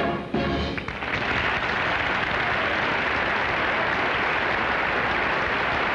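The band's music ends about a second in, and a studio audience applauds steadily for the rest.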